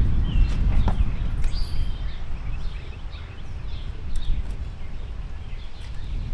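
Birds chirping in many short, scattered calls over a steady low rumble.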